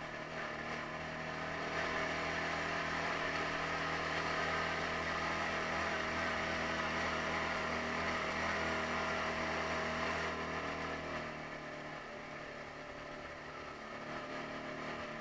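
Taotao 150cc ATV's single-cylinder engine running under throttle. It grows louder about two seconds in, holds, then eases back down about ten seconds in.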